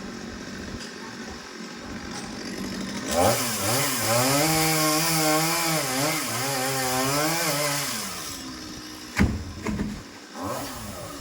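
Chainsaw revved up and cutting for about five seconds, its engine pitch wavering up and down under load before it drops away. A sharp knock follows about a second later.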